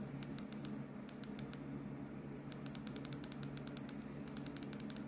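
Plastic buttons of a TV remote control being pressed over and over to pan a map, clicking in several quick runs of rapid clicks, over a steady low hum.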